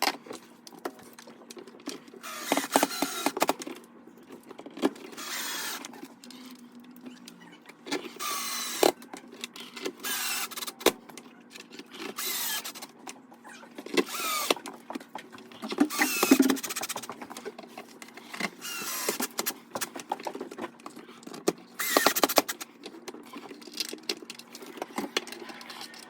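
A Craftsman 19.2V cordless drill driving screws in short bursts of about a second each, the motor's pitch rising as it spins up, repeated about eight times. Between the runs come sharp clicks and clinks of metal screws and plastic parts being handled.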